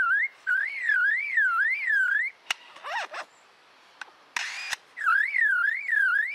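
Superb lyrebird mimicking a car alarm: a wailing tone that sweeps up and down about three times a second. About two seconds in it breaks off for a click, a short chirp and a burst of hiss, then the wail starts again near the end.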